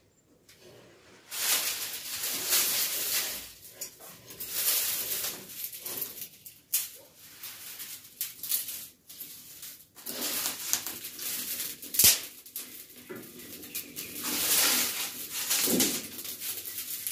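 Dry twigs and sticks rustling, cracking and snapping as they are broken and fed into a wood fire in a mud stove to raise the flame, with one loud crack about twelve seconds in.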